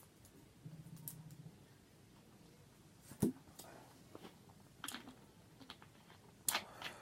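A person chewing food with mouth open, with a scattering of short wet smacks and clicks from the lips and tongue; the sharpest smack comes about three seconds in, and a few more follow near the end.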